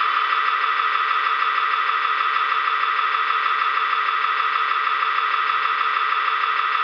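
Steady electric whine of a scale RC Mercedes SK tipper truck's tipping drive running as the dump body lowers, changing near the end as the body settles flat.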